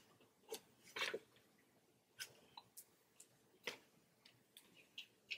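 Near silence broken by several faint, irregular small clicks and taps of fingertips and long nails on a small powder blush palette, and of fingers rubbing the powder in while swatching it.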